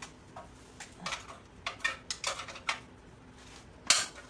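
Metal clinks and knocks from a small gasoline generator engine and hand tools being handled during teardown: a run of short clinks, then a louder clank near the end.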